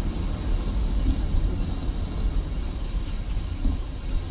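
Steady road and engine noise of a moving car heard from inside the cabin, a heavy low rumble under a hiss, with a faint steady high whine.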